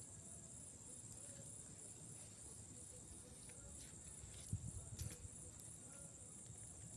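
Crickets chirping steadily in a high-pitched pulsing drone. About four and a half to five seconds in come a few faint knocks as a knife cuts a yam against a metal fan guard.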